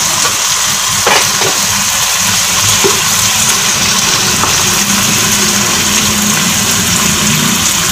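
Chicken pieces frying in hot oil in a pot, a steady sizzle, with a steady low hum underneath and a light click about a second in.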